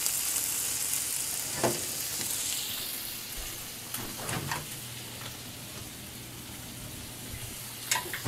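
Crumbled sausage and onions sizzling in a nonstick frying pan, stirred with a spatula at first; the sizzle eases after about three seconds. A few short clicks and knocks are heard along the way.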